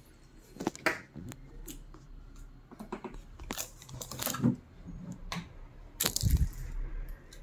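Handling noise: scattered irregular clicks, knocks and rustles, with the loudest, a low thump and rustle, about six seconds in.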